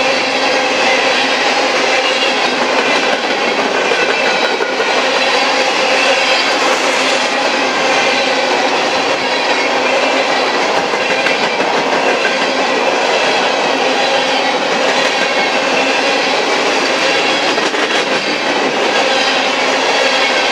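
Coal hopper cars of a freight train rolling past close by: loud, steady noise of steel wheels running over the rails.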